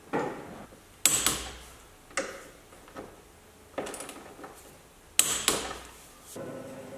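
Sharp metallic clicks and clanks, roughly one a second and some in quick pairs, as a wrench is worked on the Porsche 911's front torsion-bar height-adjustment screw to set the ride height. A steady low hum comes in near the end.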